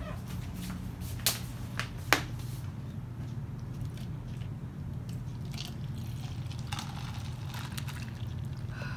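A few soft clicks and rustles from a paper cup with a straw and a plastic water bottle being handled, over a steady low hum.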